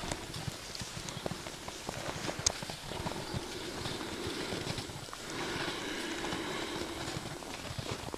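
Hoofbeats of a ridden American Paint Horse gelding walking over snow-covered ground, a steady run of short hoof falls.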